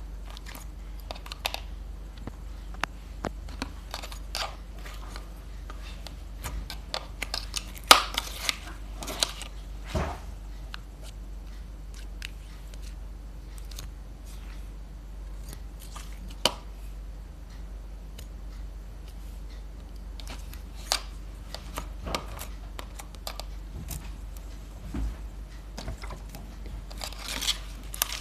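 Clear slime being squeezed and stretched by hand, giving irregular small crackles, clicks and pops, with a sharper crackle about eight seconds in.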